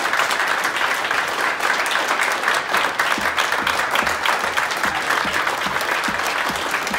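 A crowd applauding: many hands clapping at once in a dense, steady patter.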